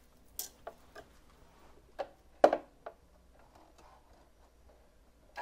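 A few scattered light clicks and taps from handling the fabric at the sewing machine, with no steady machine running; the loudest tap comes about two and a half seconds in.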